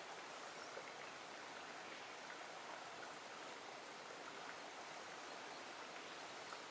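Faint, steady rush of flowing stream water: an even hiss with no distinct events.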